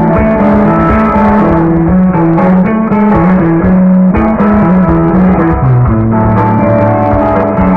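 Live instrumental rock band playing through stage amplification: electric guitar melody over bass guitar and drums, loud and continuous.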